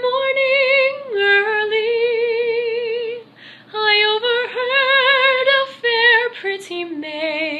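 A woman singing a slow Celtic ballad unaccompanied, holding long notes with a wide vibrato, with short breaths between phrases about three and a half seconds in and again near the end.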